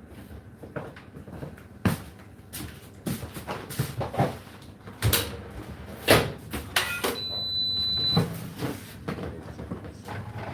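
A string of knocks and bangs from things being handled, typical of cupboard doors and kitchen items, with one high electronic beep lasting about a second about seven seconds in.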